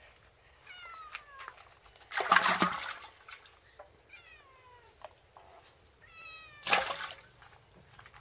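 A cat meowing: about three drawn-out calls, each falling in pitch. Between them come two louder wet splashing thrashes, about two seconds in and again near the end, from fish flapping in a basket as they are handled.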